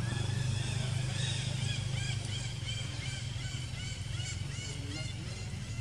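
A rapid series of short, high chirping calls, about three a second, over a steady low hum.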